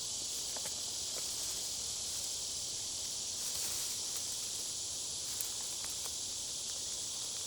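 Steady, high-pitched insect chorus droning without a break, with a few faint clicks.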